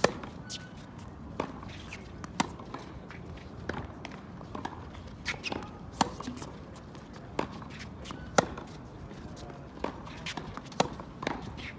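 Tennis rally on a hard court: sharp racket-on-ball hits traded back and forth about every second or so, the loudest from the near player's forehands, with the ball's bounces and shoe scuffs in between.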